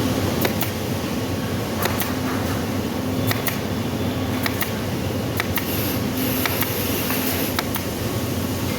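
A steady machine hum with a few sharp clicks or taps scattered irregularly through it.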